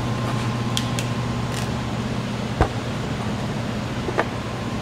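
Steady low machine hum, with a few sharp clicks; the loudest comes about two and a half seconds in and another about four seconds in.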